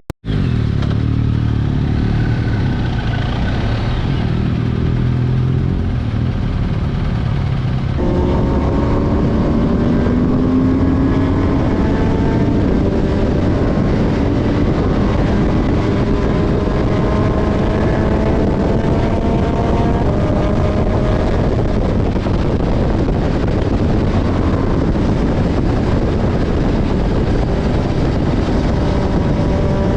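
A motor vehicle's engine running. The sound changes suddenly about eight seconds in, after which the engine's pitch climbs slowly, as when it gathers speed.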